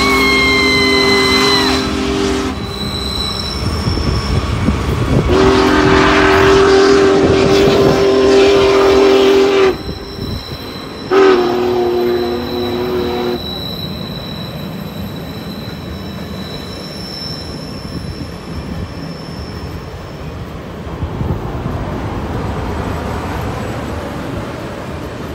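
Union Pacific Big Boy No. 4014 steam locomotive sounding its chord whistle in three long blasts, the last one shorter, with a brief high wheel squeal near the start. After the third blast the passenger cars keep rolling past with a steady rumble.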